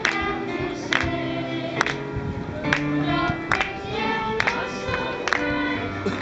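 Children's choir singing a song together through PA speakers, with keyboard accompaniment and a steady beat a little under once a second.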